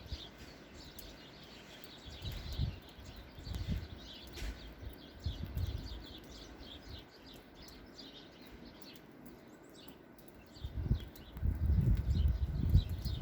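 Small birds chirping over and over in quick short notes, with gusts of wind rumbling on the microphone now and then, strongest near the end.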